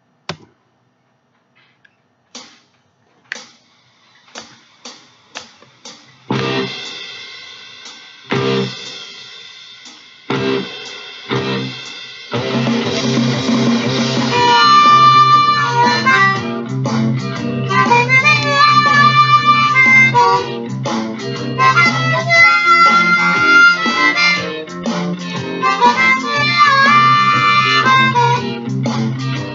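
Diatonic harmonica in C improvising a blues, with held notes that bend in pitch. It comes in about halfway through and plays to the end. Before it there are a few sharp taps, then loud struck chords that ring and fade.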